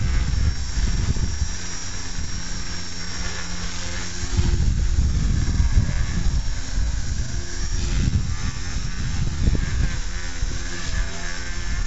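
Blade mCP X micro RC helicopter hovering: a steady high electric-motor whine with a lower rotor hum, over heavy wind rumble on the microphone.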